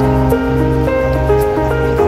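Background music: soft, slow instrumental with sustained notes over a steady bass.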